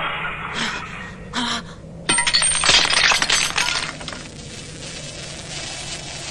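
Cartoon sound effects of a shattered android's metal parts falling and clinking and clattering onto the ground. There are a few separate hits in the first two seconds and a dense burst of clatter from about two to three and a half seconds in, which then dies away to a faint hiss with light ticks.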